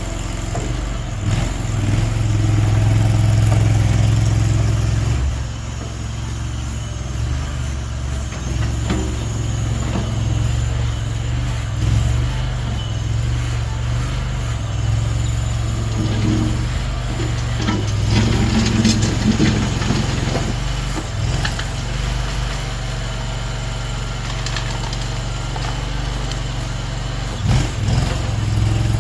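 Mini skid steer's engine running as the machine works. It is louder for a few seconds near the start, then steady, with occasional short knocks.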